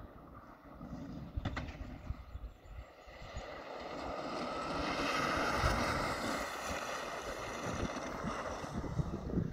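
Electric Bambino kart passing: a high motor whine with tyre noise that swells to a peak midway and then fades as the kart moves off. Wind buffets the microphone.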